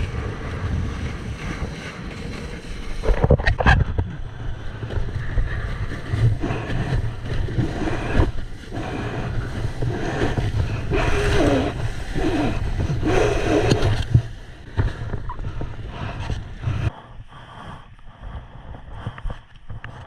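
Wind buffeting the microphone, with rushing water and splashing. It gets quieter about two thirds of the way through, then turns thinner and muffled near the end.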